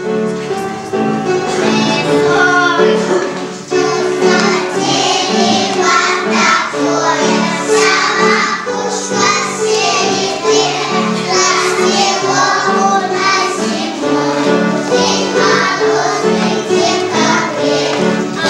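Children's song with children's voices singing over a steady, bouncy accompaniment.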